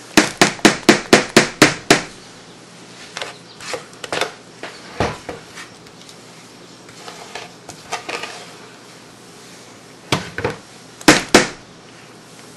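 Metal spoon rapped against the rim of a container to knock off stiff, partly frozen ice cream. A quick run of about eight sharp knocks comes in the first two seconds, then a few scattered knocks, then two more pairs near the end.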